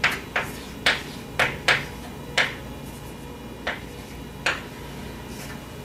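Chalk writing on a blackboard: about eight short, sharp taps and strokes, spaced unevenly, as figures are written.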